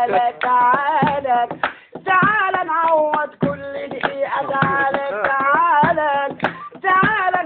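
A man singing an Upper Egyptian (Sa'idi) folk melody in a strained voice, with long held notes that waver and slide in pitch. A few sharp percussive hits fall between the phrases.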